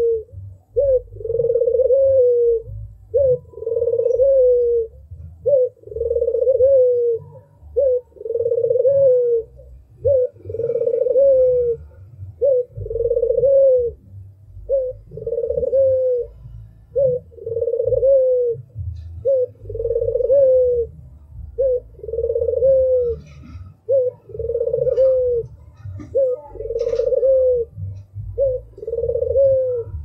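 Albino Barbary dove (white puter) cooing over and over: a short note followed by a longer rolling coo that falls off at the end, repeated about once every two seconds.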